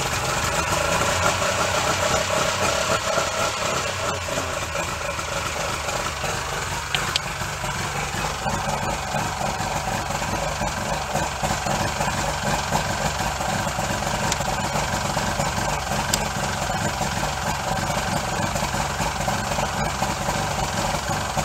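Mercury outboard motor running steadily at a slightly raised idle, warming up on its first cold start after sitting all winter.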